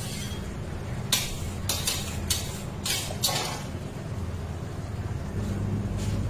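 Metal cake spatula scraping and tapping against frosting and the metal turntable plate: a quick series of short scrapes about one to three and a half seconds in, over a steady low hum.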